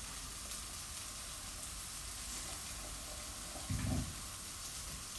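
Diced smoked tofu frying in margarine in a pan, a steady sizzle. A brief low thump about three and a half seconds in.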